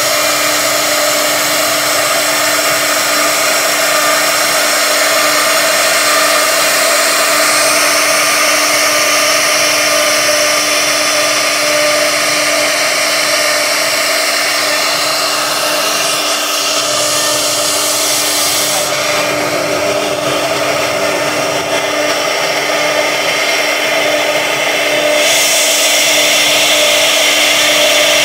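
CNC router spindle running at high speed while its bit carves a 3D relief into a wooden board: a steady whine with cutting hiss. The high hiss drops away for several seconds about two-thirds through, then returns.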